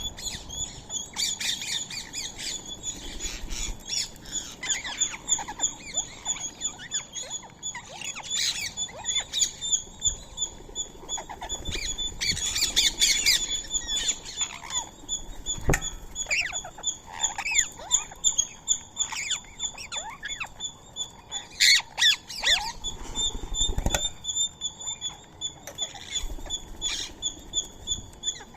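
Rose-ringed (Indian ringneck) parakeets squawking and chirping in a mix of short sweeping calls, over a steady, rapidly pulsing high-pitched note. Two sharp knocks stand out, about sixteen and twenty-four seconds in.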